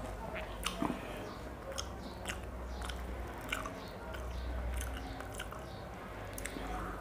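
Close-up chewing of sunny-side-up fried eggs, with many short, irregular mouth clicks and smacks.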